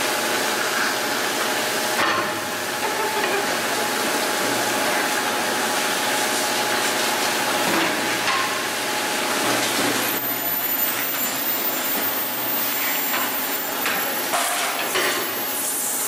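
Induction forging furnace line running: a steady, loud noisy hum with a few short metallic knocks from the billet feed. A thin, very high whine comes in about ten seconds in.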